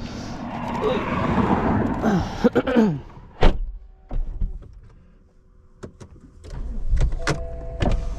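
Vehicle noise with a falling pitch, then a single loud car-door thump about three and a half seconds in. After a quiet moment, a car's blower fan comes on with a few clicks near the end.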